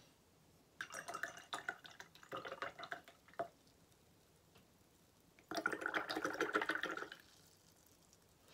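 Paintbrush swished and tapped in a glass jar of rinse water, in two short bouts of splashing with light clinks against the glass.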